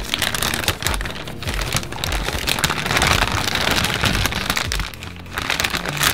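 Snack packaging crinkling and crackling, densest around the middle, over background music with a steady beat.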